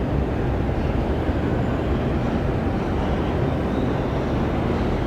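New York City subway 7 train rumbling steadily as it approaches the platform.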